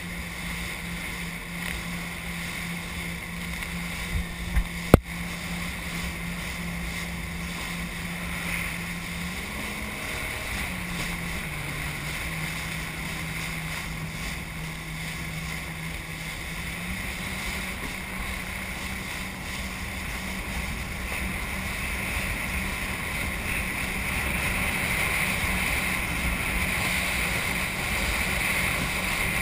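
Jet ski engine running at speed, with water spray and wind rushing over the hull. Its note shifts up, then down, then up again midway, and the rush of water grows louder near the end. A single sharp knock comes about five seconds in.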